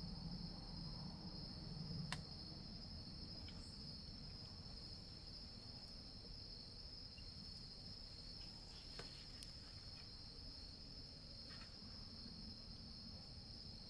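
Crickets trilling in a steady, continuous high chorus, with a sharp faint click about two seconds in and another near the middle.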